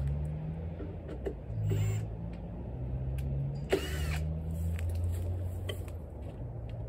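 Cordless electric drill/driver running in uneven spurts, its motor speed stepping up and down, with a few clicks, as screws are driven to fix a honey box onto a wooden beehive.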